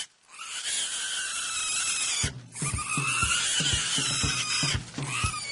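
A piglet squealing loudly and almost without pause in long, high-pitched squeals, broken only by brief gaps: its distress at being held and carried.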